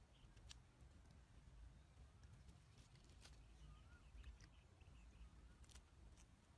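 Near silence: faint outdoor field ambience with a few soft, scattered clicks and faint distant bird chirps.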